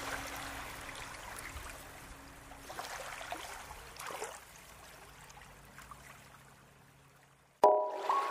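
Background electronic music fading out to a faint hiss, then a new music track starting near the end with bright, evenly spaced keyboard notes.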